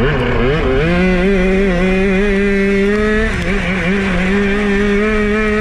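200cc four-stroke single-cylinder racing kart engine heard on board at speed. Its pitch dips and comes back in the first half second as the throttle is lifted and reapplied. It then holds steady at high revs, easing off slightly a little over three seconds in, with a rushing noise underneath.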